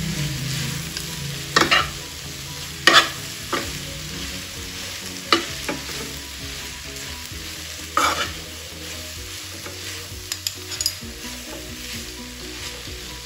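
Noodles and vegetables sizzling in a stone-coated nonstick frying pan as they are stirred and tossed with a metal fork and spoon. Several sharp clinks of the utensils against the pan break in, the loudest about three seconds in, with a small quick cluster near the end.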